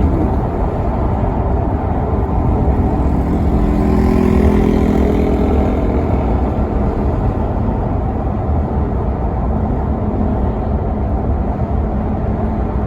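Maserati Quattroporte Sport GT's V8 engine running while the car is driven, with a heavy low rumble. It pulls harder for a couple of seconds, about three seconds in, then settles into a steadier drone.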